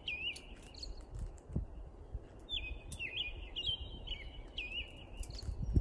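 A bird chirping in short runs of repeated calls, each a quick upward flick that settles on a steady note. One run comes near the start and another about three seconds in, over low background rumble with a few light clicks and a dull knock.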